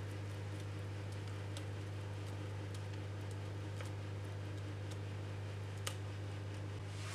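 Steady low hum, with faint scattered ticks as the last of a thick cake batter drips into a metal springform pan, and one sharper click about six seconds in.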